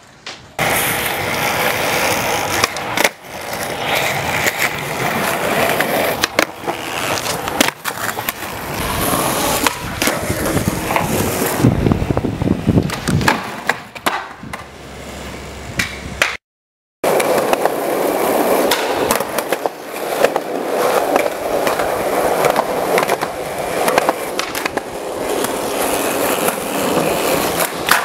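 Skateboard wheels rolling and grinding on concrete ledges and a bench, with repeated sharp clacks from the board popping and landing. The sound cuts out abruptly for a moment about halfway through.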